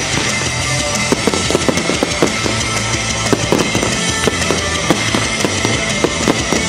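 Fireworks going off: a steady, dense run of pops and crackles, with music playing underneath.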